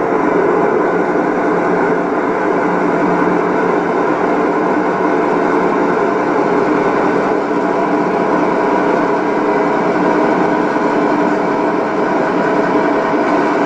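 Steady running noise of HO-scale model trains on a layout, even and unbroken throughout.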